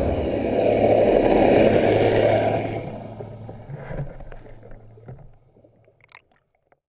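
Rushing underwater water noise with a low steady hum, fading away over a few seconds, then a few small bubbling pops near the end.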